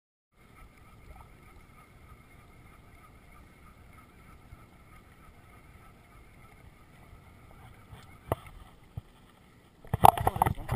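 Faint wind and water noise on a fishing boat, with a faint steady whine that stops shortly before a sharp click. Near the end comes a loud, short burst of splashing as a musky strikes the lure beside the boat during a figure-eight.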